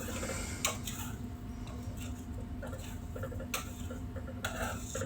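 A few sharp light clicks and knocks, with fainter small taps between them, over a steady low hum.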